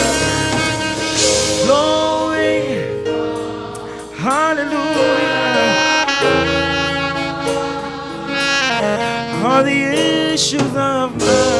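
Instrumental gospel music with a saxophone playing the lead melody, its notes scooping and bending, over sustained chords.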